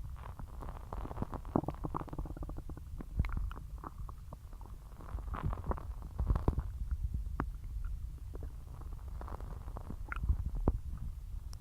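Human stomach gurgling while digesting a large meal: a continuous low rumble with many small pops and gurgles throughout.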